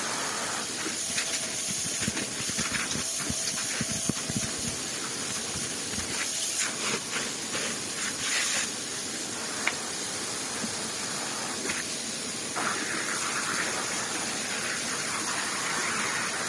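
A steady rushing hiss with many short clicks and rattles through the first half, heard while the old dust bag is being emptied and cleaned out.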